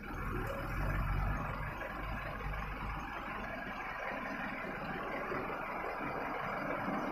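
Heavy lorries' diesel engines running as they pass close by, a deep low rumble strongest in the first few seconds, then steady engine and road noise.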